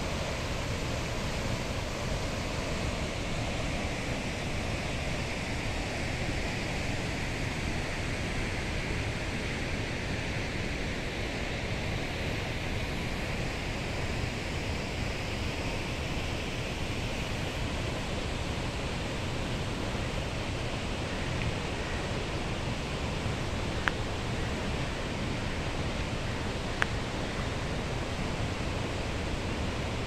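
Steady rush of a river's flowing water and a small waterfall, an even noise at a constant level. Two brief clicks come near the end.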